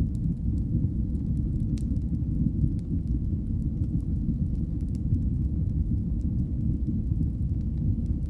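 Wood fire burning in a fireplace: a steady low rumble of flames with scattered faint crackles and pops, one sharper pop about two seconds in.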